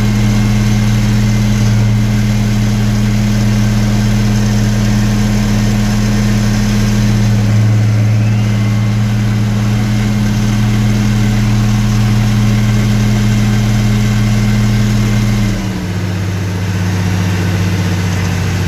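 International Harvester 1256 tractor engine running at a steady speed while pulling a manure spreader that is unloading. About three seconds before the end, the engine drops to a lower, quieter speed as the throttle is eased back with the load spread out.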